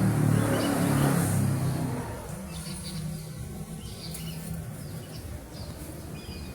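A motor vehicle rumbles past, loudest in the first two seconds and then fading, with short high bird chirps scattered throughout.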